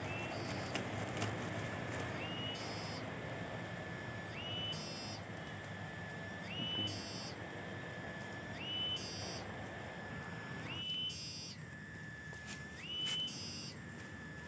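A repeating whistled animal call from the surrounding forest: a steady high tone that steps up to a higher note for about half a second roughly every two seconds. Over the rustle of plants being handled, there are a couple of sharp snaps about a second in as fern stems are picked.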